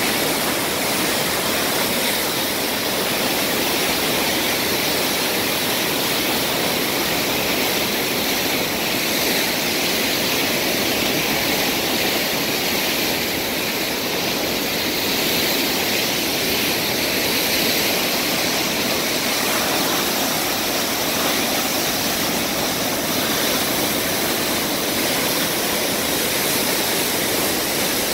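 Floodwater released from a dam's outlet works: turbulent whitewater churning below the concrete outlet makes a steady, unbroken rush. This is a heavy release, with the lake 15 ft above normal.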